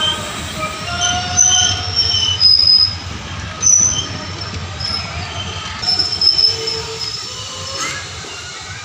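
Blue passenger-train coaches rolling slowly past, with repeated short, high-pitched squeals from the wheels and brakes over a low rumble as the train pulls into the station.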